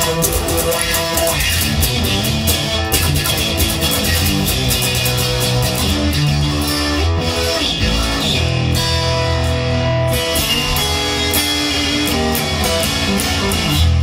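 Instrumental rock music led by guitar, with bass and a steady drum beat.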